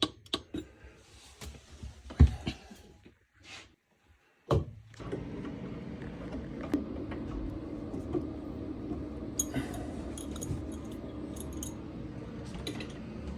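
Scattered metallic clinks and knocks of tools and faucet parts being handled while a bathroom faucet is taken apart, with one sharp knock about two seconds in. From about five seconds on, a steady low hum runs under occasional light clinks.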